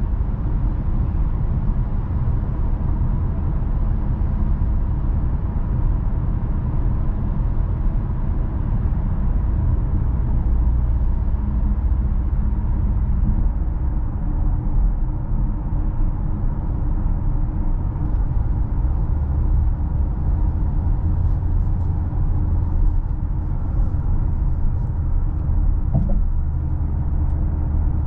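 A 2021 Mercedes GLA with a 1.3-litre 163 hp turbo four-cylinder petrol engine being driven, a steady low rumble of engine and road noise. A few faint clicks come near the end.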